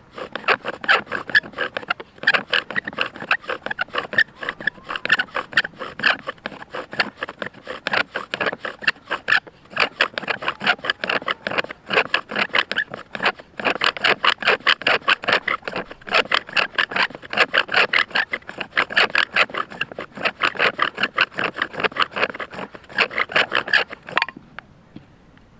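Bow drill for friction fire: the wooden spindle rubbing in the hearth board as the bow is sawn rapidly back and forth, a fast, even rhythm of strokes, smoking as it heats the hearth toward an ember. The strokes stop about a second before the end.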